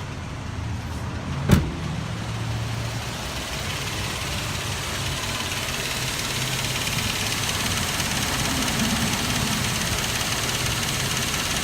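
2006 Nissan Frontier engine idling warm, with a faint knock that the owner puts down to worn timing chain guides letting the chain hit the tensioner, metal on metal. The knock is barely audible once the engine is warm. A single sharp click comes about one and a half seconds in.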